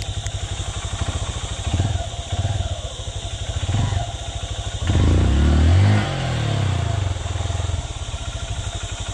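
Honda CRF150L's single-cylinder four-stroke engine running at idle with short throttle blips, then one longer rev about five seconds in that rises and falls before dropping back to idle, as the bike struggles in a muddy rut.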